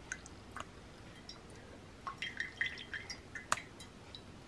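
Drops of strained sunflower-seed liquid falling from a sieve into the liquid in a pot: faint, irregular drips and plinks, coming thickest between about two and three and a half seconds in.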